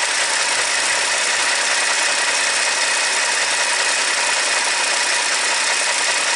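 Ford 2.7 EcoBoost twin-turbo V6 idling steadily, with a faint steady high whine over the engine noise.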